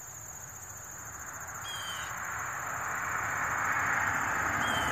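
A steady, high-pitched trill of insects, with two short high chirps. From about halfway through, a vehicle on the nearby road is heard approaching, its noise growing steadily louder until it is the loudest sound.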